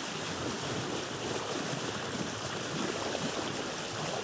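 Steady rushing wash of sea surf, with small irregular splashes and no music.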